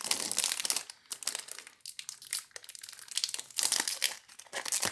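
Foil trading-card pack wrapper crinkling and crackling in the hands as the pack is opened, in irregular bursts with a couple of brief pauses.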